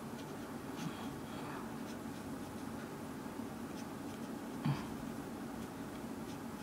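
Snowman felt-tip marker scratching on sketchbook paper as dark areas are filled in, over a steady background hiss. A brief soft sound stands out about four and a half seconds in.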